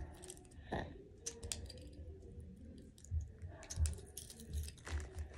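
Miniature metal toy pistol keychain being handled as its slide is worked to cock it: a scatter of small sharp metal clicks and scrapes with dull knocks of handling, the mechanism stiff to cock.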